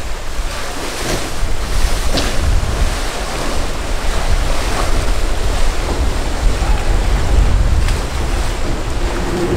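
Heavy wind buffeting the microphone, with a low, gusting rumble, over the steady rush of surf and waves.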